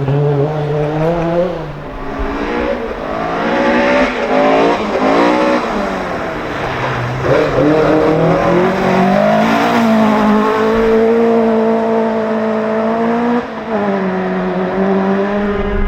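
Rally car engine under hard throttle, its pitch climbing through the revs and dropping sharply at each gear change or lift, most clearly about five seconds in and near the end.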